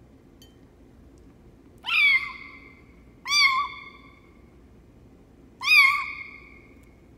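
A small kitten meowing three times: short, high-pitched cries, the first two close together and the third a couple of seconds later.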